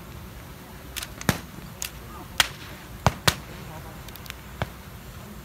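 Bonfire of a burning king boat giving off about seven sharp cracks and pops at irregular intervals, over a steady background din.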